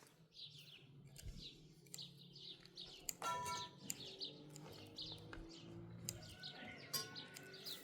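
Small songbirds chirping over and over, each note short and falling in pitch. A brief pitched call cuts in about three seconds in.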